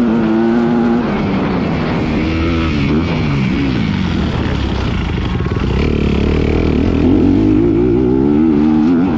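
2018 Honda CRF250R motocross bike's single-cylinder four-stroke engine revving hard, its pitch rising and falling over and over as the throttle is worked, with a longer climb about six seconds in.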